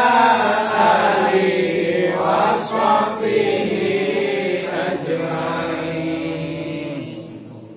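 A group of men chanting an Islamic devotional prayer together in unison, with long drawn-out notes. The chant dies away near the end.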